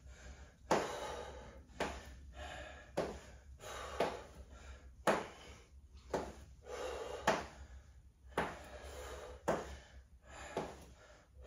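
A person breathing hard from exertion, with a sharp exhale about once a second while marching with heavy dumbbells held up.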